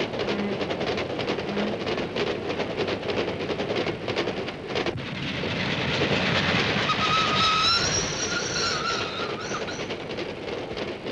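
A passenger train's coaches running past at speed, their wheels clattering rhythmically over the rail joints. About seven seconds in, a high wavering tone sounds for about two seconds over the clatter.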